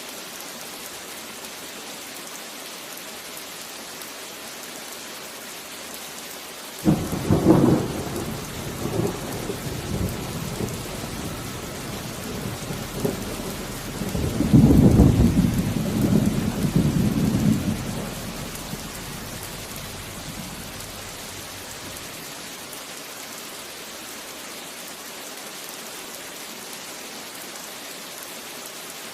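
Steady heavy rain with a thunderclap that breaks suddenly about a quarter of the way in, rumbles on with a second louder peak near the middle, and dies away, leaving the rain alone for the last third.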